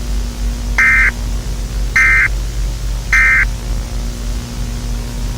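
Emergency Alert System end-of-message code: three short warbling data bursts about a second apart, over steady tape hiss and low hum.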